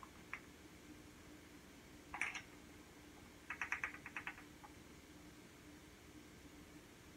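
Measuring spoon scooping dry yeast granules from a glass jar: a short scrape about two seconds in, then a quick run of small clicks a second later. A faint steady hum sits underneath.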